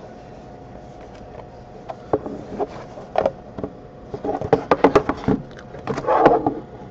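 Shrink-wrapped cardboard trading-card boxes being handled: the plastic wrap crackles and the boxes tap against each other in a run of short, sharp crinkles that starts about two seconds in and grows busier toward the end, over a faint steady hum.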